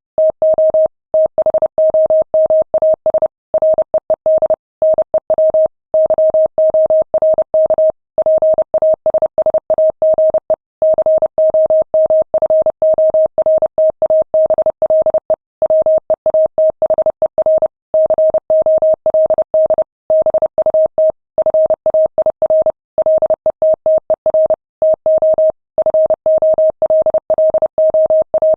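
Morse code sent at 30 words per minute: a single steady tone of about 600 Hz keyed on and off in rapid dots and dashes, with short gaps between letters and words.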